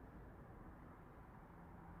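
Near silence: faint, steady low-pitched noise with no distinct events.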